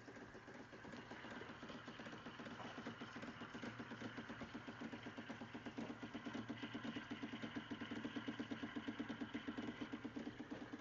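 Decent espresso machine's steam wand steaming milk in a jug: a steady hiss with a fast, even pulsing, slowly growing louder as the milk heats.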